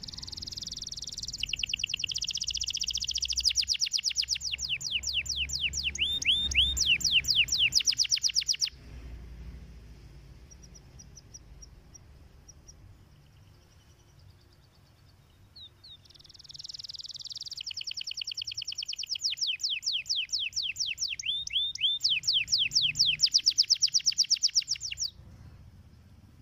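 Domestic canary singing: two long song phrases of fast trills, rows of rapid, repeated falling notes, separated by a pause of several seconds broken only by a few soft chirps.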